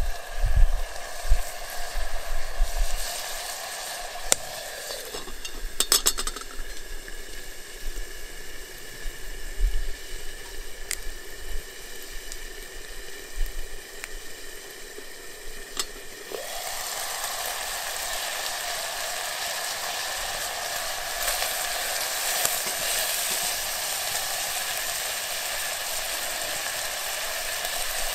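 Food sizzling in a metal cooking pot set in a campfire, a steady hiss. It drops away from about five seconds in while the pot is lidded, with a few light clinks, and comes back louder from about sixteen seconds in as the uncovered pot is stirred.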